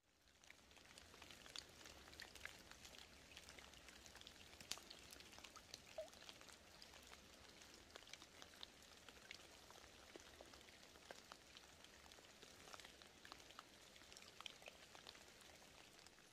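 Very faint patter of falling rain and wet snow: scattered, irregular soft ticks of drops landing near the microphone over a light hiss.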